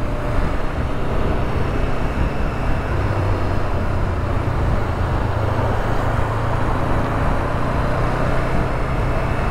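Honda CB500F's parallel-twin engine running steadily at cruising speed under a constant rush of wind and tyre noise.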